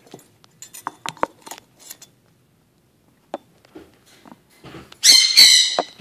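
Male eclectus parrot giving a few soft clicks and short chirps, then a loud, harsh two-part squawk about five seconds in.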